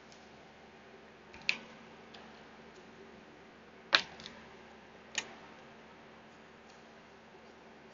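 Three sharp plastic clicks of markers being uncapped, capped and set down on a table while pens are swapped, the loudest about four seconds in.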